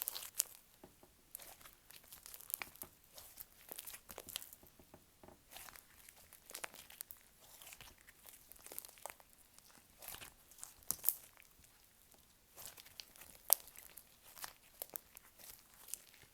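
Clear slime being squeezed, stretched and poked by hand, giving irregular sticky crackles, clicks and small pops, with one sharper snap near the end.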